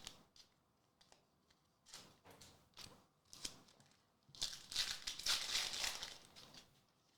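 Foil Pokémon booster pack wrapper torn open and crinkled, a crinkly tearing noise lasting about two seconds, after a few short rustles of the cards and pack being handled.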